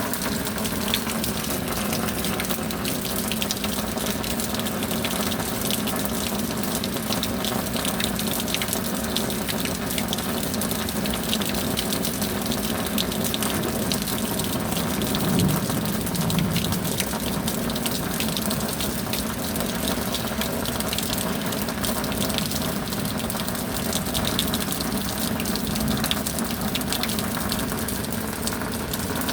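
Rain falling steadily, a dense, even rush of water with no pauses.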